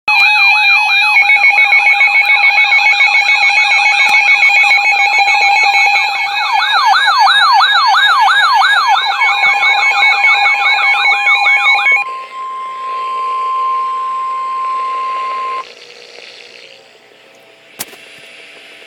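Emergency alert tones: several electronic alarm tones and rising-and-falling siren wails sounding together for about twelve seconds, then a single steady warning alarm tone of a little over 1 kHz, typical of NOAA Weather Radio's 1050 Hz alert, for about three and a half seconds. Faint hiss follows, with one click near the end.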